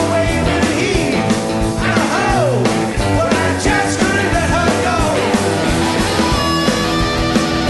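Rock band playing live: electric guitar, bass and drums with a steady beat.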